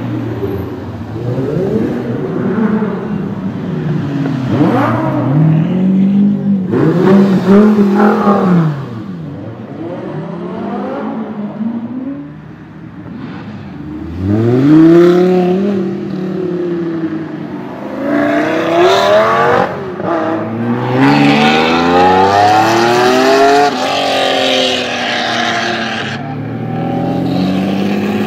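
Lamborghini supercar engines revving and accelerating away one after another, each rising sharply in pitch through a rev-up and then dropping; the loudest rev-ups come about seven and fifteen seconds in.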